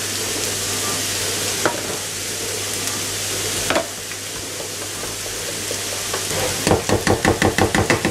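Wire hand whisk beating flour into egg batter for soup dumplings in a bowl: a couple of knocks at first, then fast rhythmic whisking strokes, about six a second, over the last second or so. A steady sizzling hiss runs underneath.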